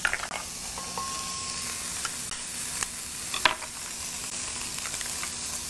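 Mushrooms sizzling as they fry in olive oil in a skillet, a steady hiss. A few light ticks and taps sound over it, with one sharp click about three and a half seconds in as an egg is cracked against a glass shaker.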